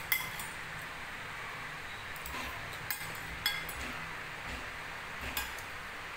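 Metal spoon and fork clinking and scraping against a ceramic plate while eating noodles: about five sharp, light clinks spread across the few seconds.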